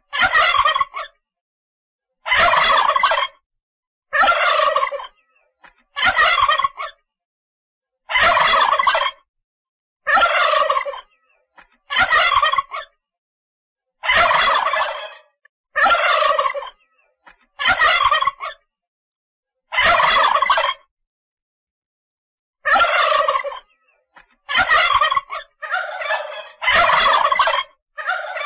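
Male turkey gobbling over and over, about fifteen gobbles roughly two seconds apart, each about a second long, with dead silence between them.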